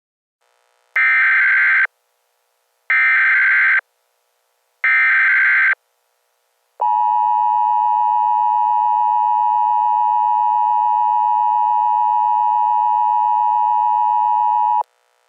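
US Emergency Alert System alert signal: three identical short bursts of digital data tones (the SAME header), about a second apart, then the steady two-tone attention signal held for about eight seconds before it cuts off.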